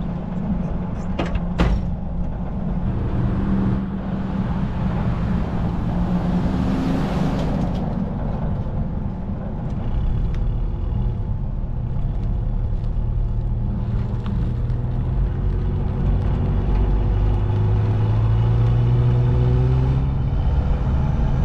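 Car engine running while driving, its pitch rising and falling with the throttle, with two sharp clicks about a second and a half in.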